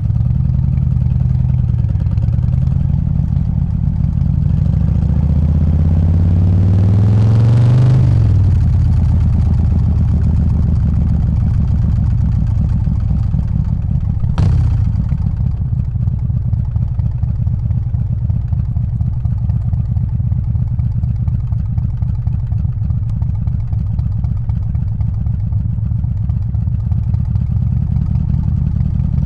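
Harley-Davidson Softail's 124-cubic-inch S&S Evo V-twin running under way: it revs up for several seconds as the bike pulls through a gear, drops off sharply about eight seconds in, then settles to a steady low lope. A single sharp click comes about halfway through.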